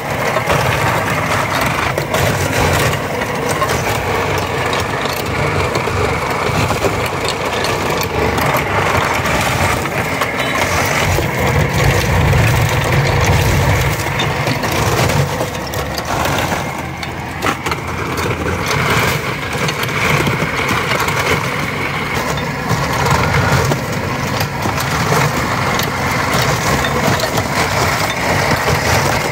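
Motorized ice crusher running steadily and grinding chunks of block ice, with continual crunching and cracking as crushed ice pours out.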